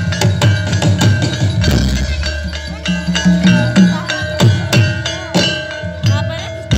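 Live jaran kepang accompaniment music: drums and ringing metal gong-chime percussion playing a fast, driving rhythm, with a steady ringing tone under the strikes.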